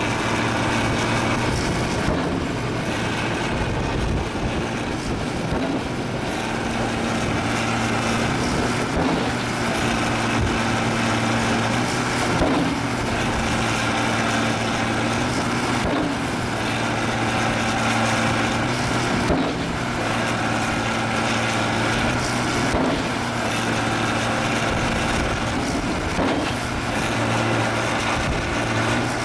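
Truck-mounted guillotine pavement breaker at work, its engine running steadily. The sound changes in a regular cycle about every three and a half seconds, as the blade breaks the concrete pavement.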